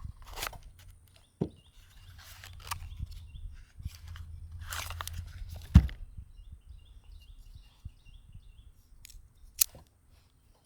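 Handling noise from a Steyr M95/30 straight-pull rifle: sharp metallic clicks and rustling, crunching scrapes, with the loudest sharp knock a little past halfway.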